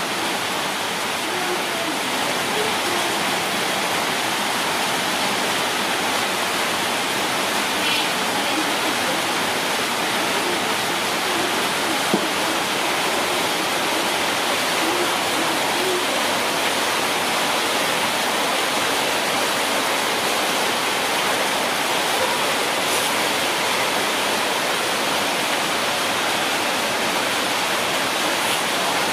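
A steady, even rushing hiss that does not change.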